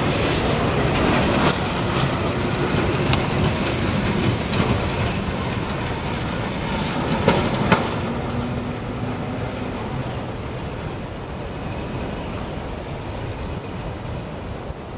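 Tram running on street track, its wheels rumbling with a few sharp clicks over rail joints, then growing slowly fainter in the second half.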